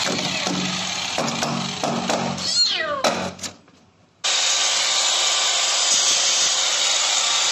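A trapped kitten meowing repeatedly inside a rainwater drainpipe while an angle grinder winds down, its pitch falling, about three seconds in. After a brief silence the angle grinder starts running steadily again, cutting into the pipe.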